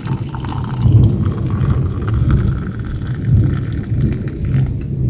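Thunder rumbling: a long, low roll that swells several times, over a faint hiss of rain.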